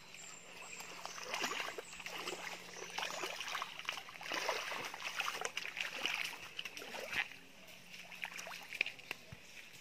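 Footsteps and splashing in a shallow creek: irregular, uneven scuffs and sloshes, busiest from about one to seven seconds in, then thinning out.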